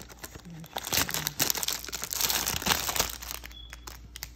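Clear plastic packaging crinkling and crackling as it is handled and pulled open, in irregular crackles that thin out toward the end.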